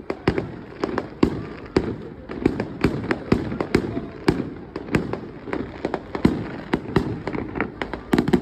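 Fireworks display going off nonstop: a rapid, irregular run of sharp bangs and crackles, several a second, over a steady low rumble.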